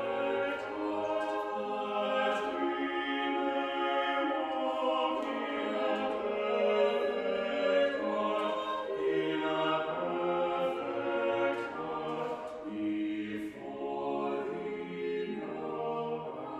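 A small choir singing a slow piece in several parts, holding its notes with the singers' consonants audible between them.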